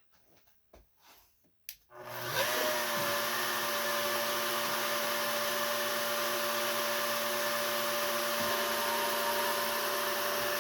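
CNC wood router's spindle motor starting about two seconds in, quickly whining up to speed, then running steadily with a constant whine over a rushing noise. A few faint clicks come before it starts.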